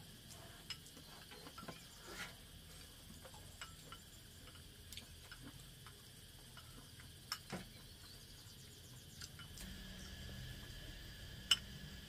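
Insects chirring steadily and faintly, with scattered light clicks and taps. A faint low hum comes in near the end.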